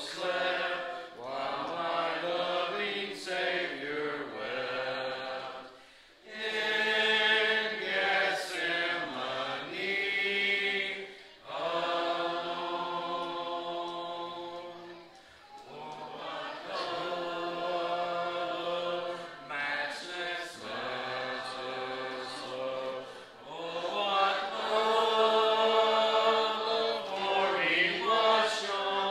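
A congregation singing a hymn a cappella, in long held phrases with short breaks between them, near 6 seconds and again near 15 seconds.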